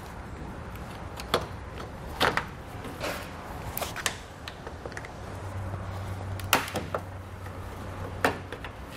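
A string of sharp plastic clicks and snaps, about seven, irregularly spaced, from hands working loose plastic trim and clips under a car's front end. A low steady hum runs for about three seconds in the second half.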